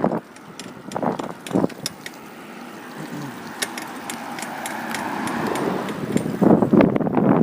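Bicycle rolling along a street: a few sharp clicks and rattles, a rush of road and tyre noise that grows steadily louder, then loud rapid clattering from about six and a half seconds in.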